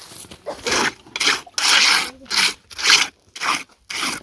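Rhythmic scraping strokes, about two a second, each a short rasp of a hand tool working a rough surface.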